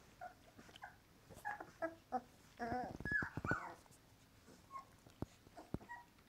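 Young puppies squeaking and whimpering while suckling from their standing mother: a run of short, high squeaks that bunch up and get loudest around three seconds in, then a few faint ones.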